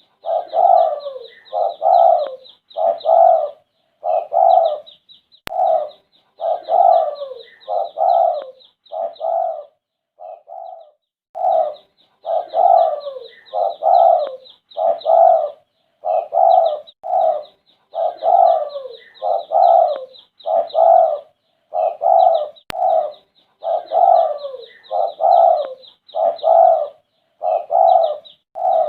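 Red-eyed spotted dove (derkuku) cooing over and over in phrases of several low coos, with short pauses between phrases and a longer break about ten seconds in. A rapid high chirping runs alongside many of the phrases.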